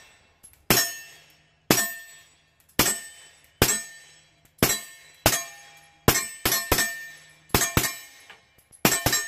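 A suppressed 9mm CZ P-01 Urban pistol with a Gemtech Lunar 45 suppressor firing about a dozen Magtech 147 grain subsonic rounds. Each shot is a sharp crack with a short ringing tail. A few shots come in quick pairs, which the shooter puts down to the suppressor's added blowback tripping the pistol into burst fire.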